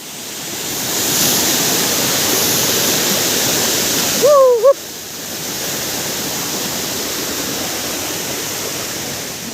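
Waterfall rushing, a steady wash of falling water that swells over the first second. A short call from a person's voice cuts in about four seconds in, after which the water sounds a little quieter.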